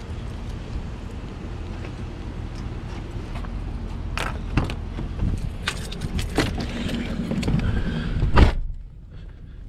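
GMC pickup's driver door: the latch clicks as the door is opened, keys jingle and clothing rustles as the driver climbs in, then the door shuts with a heavy slam about eight seconds in. After the slam the low outdoor rumble drops to the hush of the closed cab.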